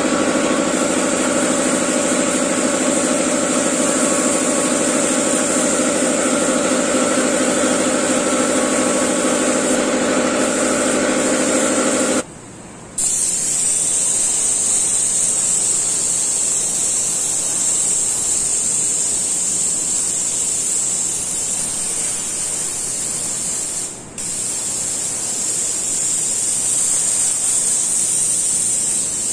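Airbrush spraying paint with a steady hiss of compressed air. A droning hum runs beneath it for the first twelve seconds or so and stops abruptly at a short break, and the air cuts out briefly about 24 seconds in.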